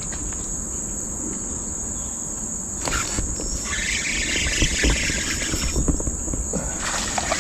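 A steady, high-pitched drone of insects in the riverside vegetation. From about three and a half to six seconds in, a louder rush of hissing noise joins it, over low rumble and small knocks.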